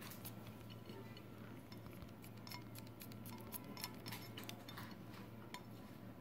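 Kitchen knife mincing garlic cloves held against the thumb over a plate: faint, irregular small clicks of the blade cutting through, over a low steady hum.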